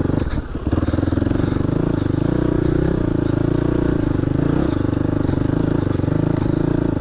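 Single-cylinder enduro motorcycle engine running at a steady speed, with a brief dip about half a second in.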